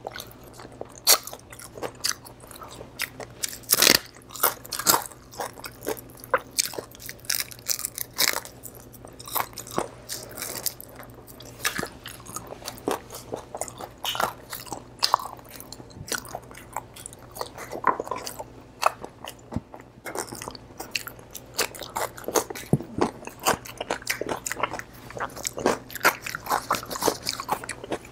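Crunching and chewing of crispy deep-fried pork: frequent, irregular sharp crunches of crackling skin with chewing between them.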